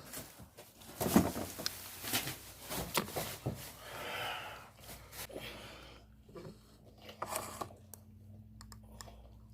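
A run of light clicks and knocks from things being handled, then a faint steady hum that starts about five seconds in.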